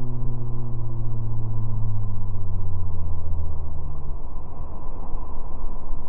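Motorboat engine humming with a low tone that sinks slowly in pitch and drops out about four seconds in, over the steady rush of the churning wake.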